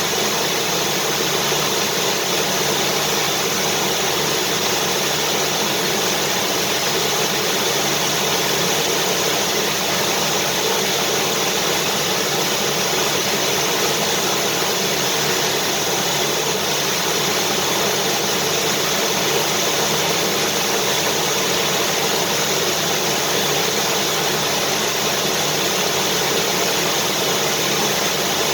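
Vacuum cleaner motor running continuously: a steady, unchanging whoosh of motor and rushing air, used as white noise to soothe babies.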